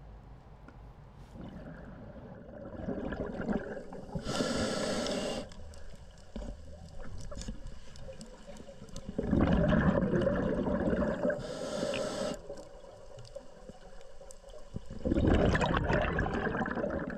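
Underwater water noise through a diver's camera: gurgling, rushing swells of water as the freediver swims, rising three times, with two short hissing bursts about four and eleven seconds in.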